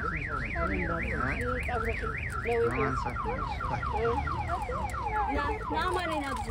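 Car alarm sounding: an electronic tone warbling quickly up and down, about four cycles a second. About three seconds in it switches to rapid falling chirps, about five a second.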